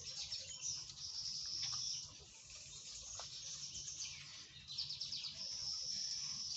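A bird singing in the background: two long, high-pitched trilling phrases, one near the start and one in the second half.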